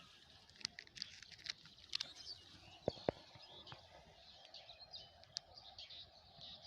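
Birds chirping and calling, faint, over quiet outdoor ambience, with a few sharp clicks, the loudest two close together about three seconds in.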